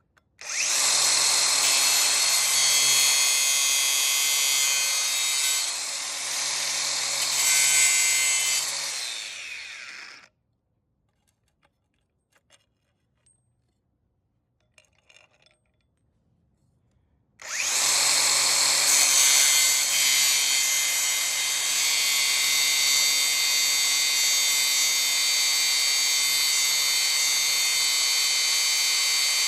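DeWalt 60V brushless angle grinder with a thin cut-off wheel cutting through a bolt. It runs for about ten seconds and spins down, then after a pause of about seven seconds starts again and cuts steadily.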